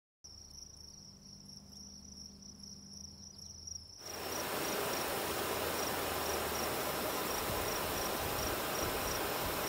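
Crickets chirping in a steady, high, pulsing trill. About four seconds in, a steady hiss joins them and becomes the loudest sound.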